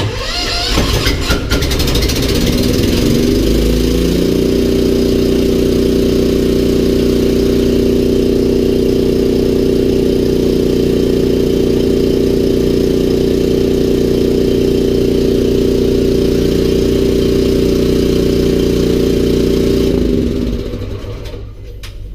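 Engine-driven high-pressure air compressor starting up: the pitch rises over the first few seconds, then it runs at a steady speed and slows and dies away near the end.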